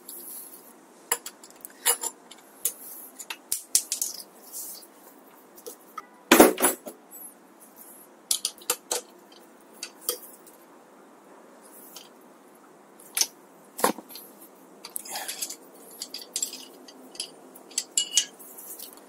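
Metal hand tools clinking and clattering as they are handled, picked up and set down, in scattered irregular clicks with one louder clank about six seconds in.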